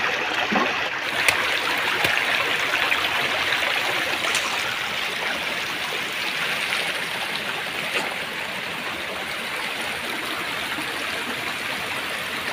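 Shallow stream rushing steadily over stones. There are a few sharp knocks in the first couple of seconds, from a knife chopping on a wooden board set in the water.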